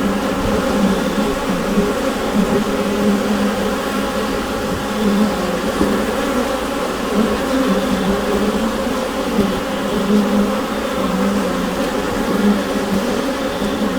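Honeybee colony buzzing inside the hive: a dense, steady hum of many bees with a low drone and gentle swells in level.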